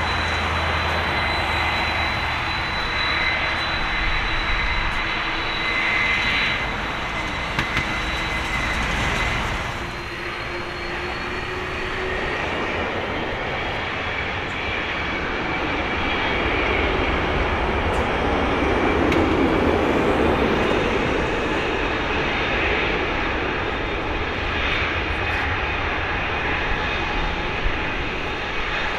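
Airbus A330-200's twin turbofan engines at low taxi thrust as the airliner turns onto the runway: a steady jet whine over a low rumble, swelling a little midway.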